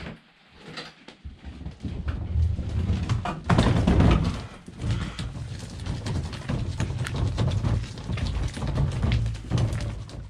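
Wheeled plastic water-tank cart pulled along a gravel path: its wheels crunch and rattle over the gravel with footsteps, and there is a louder jolt about four seconds in.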